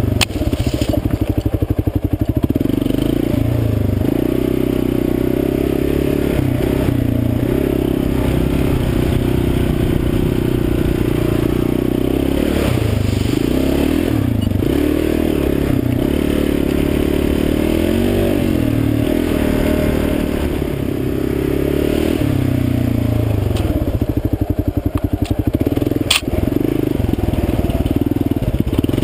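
Kawasaki KLR 650's single-cylinder engine running under way, its revs rising and falling with the throttle, dropping to slow chugging at the start and again shortly before the end. A single sharp knock sounds near the end.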